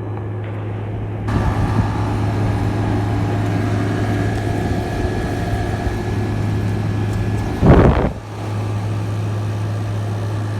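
Arctic King 5000 BTU window air conditioner running on cool, its GMCC rotary compressor humming steadily under the fan's airflow. About eight seconds in comes a brief loud rumble.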